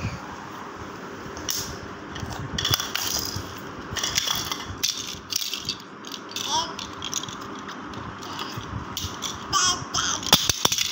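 Plastic baby toy rattling and clicking in irregular bursts as it is shaken and handled, with a cluster of sharp clicks near the end.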